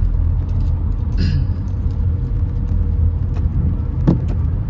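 A car running, with a steady low rumble of engine and road noise. A few light clicks and jingles sound over it, with a sharp click about four seconds in.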